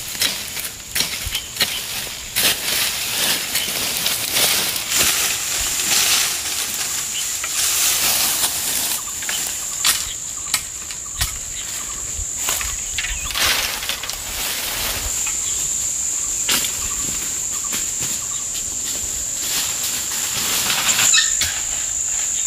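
Steady high-pitched insect drone of crickets or cicadas, dropping out for a moment about halfway through. Irregular rustles and light knocks of hands at work sound over it.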